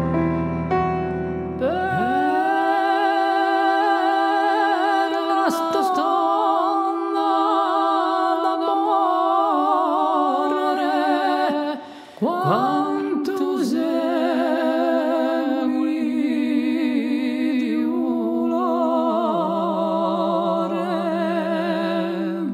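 Wordless vocal line closing an Occitan song: long held, wavering notes in two phrases with a short break about halfway. A low held instrumental chord sounds under the first couple of seconds.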